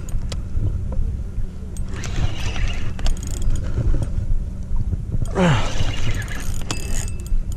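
Spinning reel being cranked against a heavy, hard-pulling stingray, with scattered sharp clicks from the reel and rod handling over a steady low rumble.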